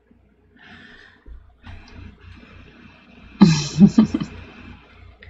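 Faint background music with a low, steady beat. About three and a half seconds in, a short loud sound with a wavering pitch cuts over it.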